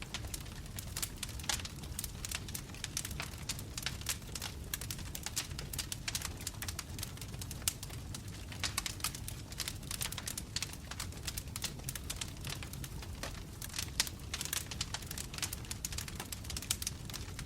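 Wood fire of burning logs in a fireplace crackling: many irregular sharp pops and snaps over a steady low rumble of the flames.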